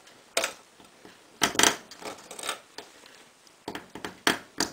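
Tin snips cutting through the thin metal of a tin can: a series of about six sharp, crisp snips, irregularly spaced about a second apart.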